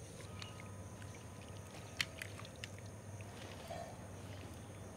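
Hand mixing wet chilli-mustard pickle paste in a stone bowl: faint wet squishing with a few light clicks, the sharpest about two seconds in.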